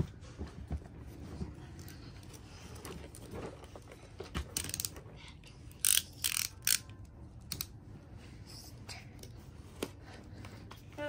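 Box cutter slitting the tape seal on a cardboard box: a handful of short, sharp cutting strokes around the middle, with quieter handling of the box between them.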